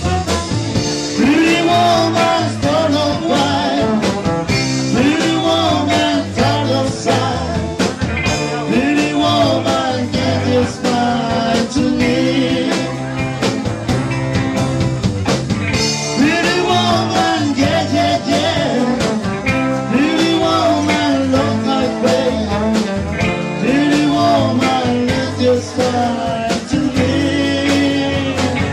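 Live band playing, with a trombone over electric guitars and bass.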